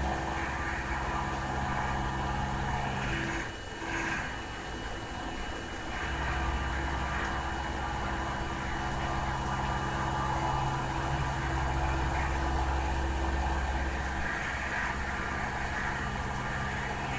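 Bridgeport VMC 1000/20 CNC machining centre milling a hole in a metal plate with an end mill under flood coolant: a steady machine hum with the hiss of cutting and coolant. The low hum drops away about three and a half seconds in and returns about two seconds later.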